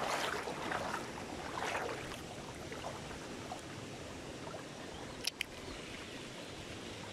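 Rushing water of a shallow stream running over rapids, with a few louder surges of water noise in the first two seconds. Two sharp clicks come a little past five seconds in.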